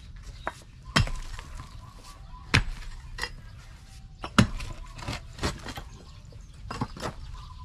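A pickaxe digging into hard, stony soil: five hard blows about a second and a half apart, with lighter knocks of stones and clods between.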